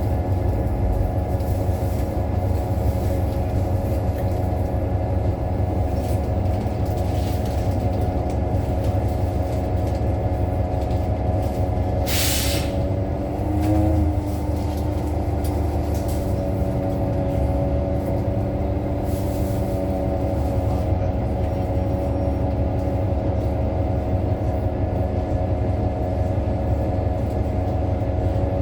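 Interior sound of a New Flyer XDE60 diesel-electric hybrid articulated bus under way: a steady drivetrain hum made of several held tones over a low rumble, which the uploader calls strange compared with other buses of the same model. There is a brief hiss about twelve seconds in, after which the tones shift slightly in pitch.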